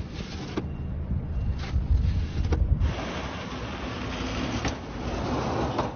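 A snow shovel scraping a sidewalk a few times over a low rumble, then, from about three seconds in, a snowplow truck's engine running as its blade pushes snow with a steady rushing noise.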